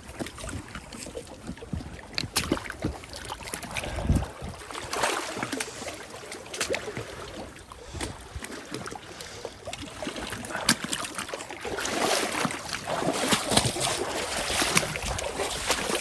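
Lake water splashing and sloshing as someone moves through it, with irregular knocks and rustles; the noisy swells grow stronger in the last few seconds.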